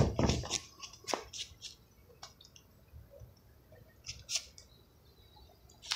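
Handling noise from a hand-held camera being moved: a sharp thump right at the start, then scattered faint clicks and light scrapes.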